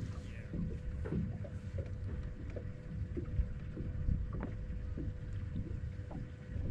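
Fishing boat on a lake: a steady low rumble of wind and water with a faint steady hum, and scattered light knocks and clicks.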